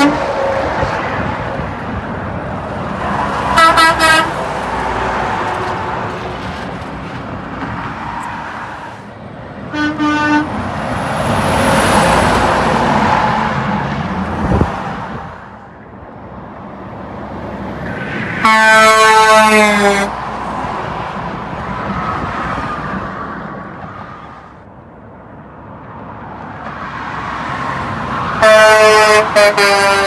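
Semi-trucks passing close by at highway speed and sounding their air horns: short blasts about 4 and 10 seconds in, a longer blast of about a second and a half that drops in pitch as the truck goes past, and another blast near the end. Between the blasts the tyre and engine noise of each passing truck swells and fades.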